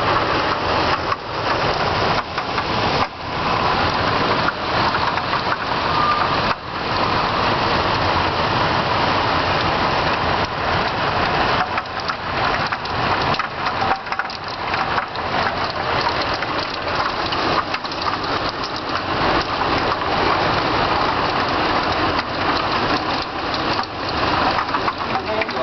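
Hailstorm: hailstones striking hard surfaces in a dense, continuous clatter of sharp impacts over the hiss of the storm.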